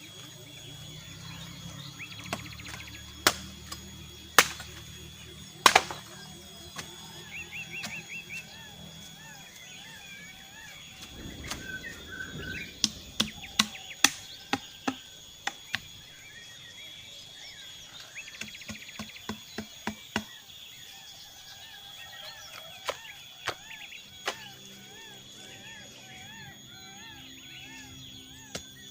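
Irregular sharp knocks and cracks of wood being worked, coming in clusters, over repeated warbling animal calls and a steady high whine from the forest.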